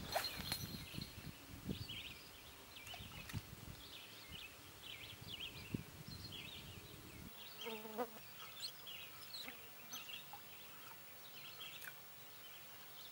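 Small birds chirping in many short, scattered high notes over a faint low rumble that stops suddenly about seven seconds in.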